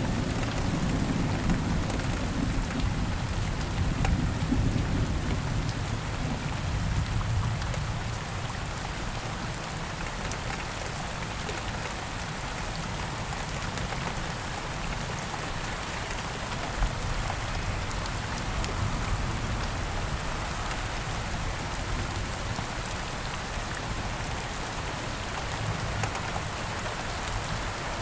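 Steady rain falling, with a low rumble of thunder that fades away over the first several seconds, leaving just the rain.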